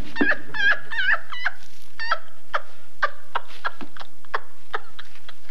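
High-pitched laughter from a woman giving voice to a lamb hand puppet. It starts as a quick run of ha-ha-ha's over the first second and a half, then slows into separate short laughs about every half second that taper off.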